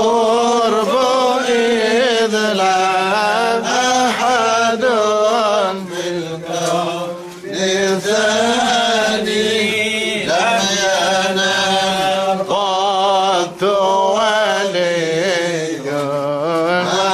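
Arabic Sufi devotional chanting: a Tijani praise poem (qasida) for the Prophet, sung in a slow, wavering melody on long drawn-out syllables, with short breaks for breath a few times.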